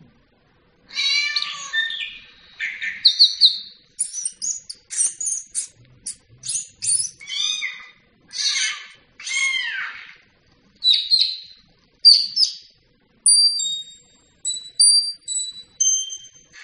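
Recorded bird chirps and tweets played from a laptop: a string of short, high, varied calls and trills with short pauses between them. Near the end they give way to a run of short clear pings at changing pitches.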